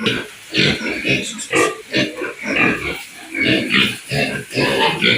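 Pigs grunting and oinking in a continuous string of short calls, about three a second.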